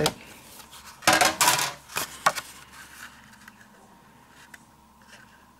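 A brief clatter of small hard objects set down on a work table about a second in, followed by two sharper knocks, then faint handling noise.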